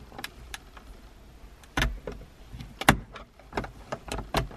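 Plastic map light lens being pried out of a car's overhead console with a screwdriver: a string of sharp clicks and snaps as the clips release, the loudest about three seconds in.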